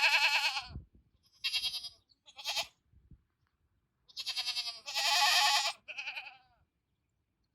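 Several goats bleating in chorus, calling to their keeper: a string of about six wavering, quavering bleats, some running into one another, with a pause of over a second in the middle.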